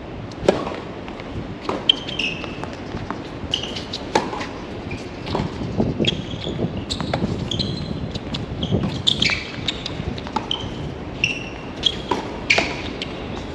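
Tennis rally on a hard court: sharp pops of balls struck by rackets and bouncing on the court at uneven intervals, the loudest about half a second and two seconds in, with short high squeaks in between.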